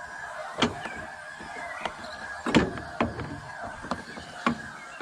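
Metal strut brace knocking and clinking against the car's strut towers and studs as it is handled and tried for fit: about five sharp separate knocks, the loudest about halfway through, over a faint steady hum.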